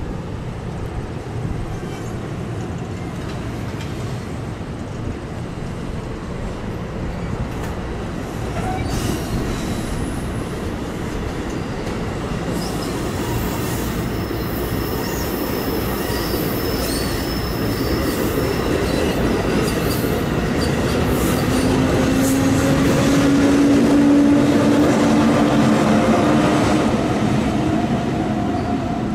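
An NJ Transit train of Bombardier MultiLevel double-deck coaches passing on the track, its wheels rumbling and clacking over the rails with a few brief high wheel squeals in the middle. It grows louder toward the end, where a steady hum comes in as the electric locomotive at the rear approaches.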